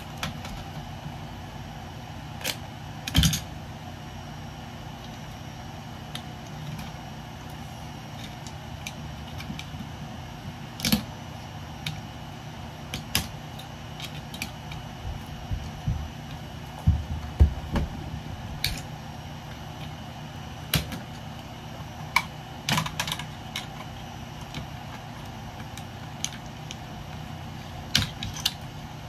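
Irregular clicks, taps and a few louder knocks of plastic and metal scrap parts being handled as plastic insulation is stripped off, over a steady low hum.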